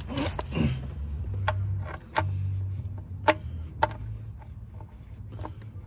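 A handful of sharp clicks and knocks, unevenly spaced, over a low steady hum, with a short hiss at the very start.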